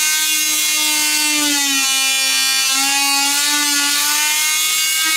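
Corded oscillating multi-tool with a flat blade running steadily while cutting into swollen particle-board cabinet trim: a high, even buzz that sags slightly in pitch a couple of times as the blade bites.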